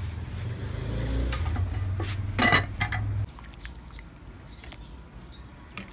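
Kitchen clatter of pots and utensils, with one loud clank about two and a half seconds in, over a low rumble that cuts off suddenly a little after three seconds. After that a metal ladle clinks and scrapes faintly as it stirs thick rice porridge in an aluminium pot.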